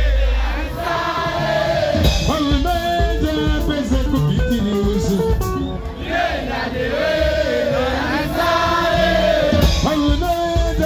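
Live band music: a lead voice singing a melody over electric guitars and a steady bass line.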